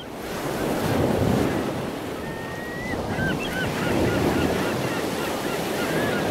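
Ocean waves washing in two slow swells, with faint high chirps from about two seconds in.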